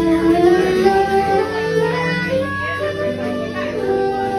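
Live band playing: a soprano saxophone carries a melody of held notes over electric guitar accompaniment.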